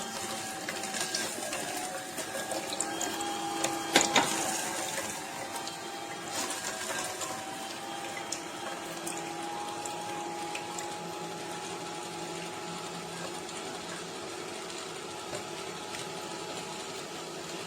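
Severin single-auger slow juicer running, its motor giving a steady whine, with one sharp knock about four seconds in. The machine keeps jamming on chopped carrots and parsnips, which the owner complains of.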